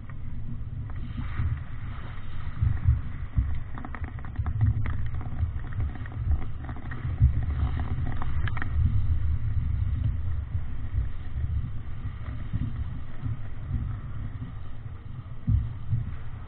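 Wind buffeting the microphone of a sailboat beating upwind, with waves and spray washing past the hull. A few sharp clicks come about four to five seconds in and again near eight and a half seconds.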